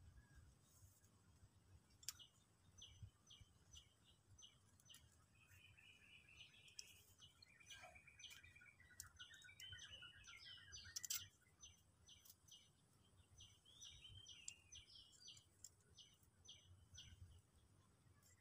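Near silence with faint birdsong: many short repeated chirps and a longer trilling song in the middle. A few faint sharp clicks about eleven seconds in.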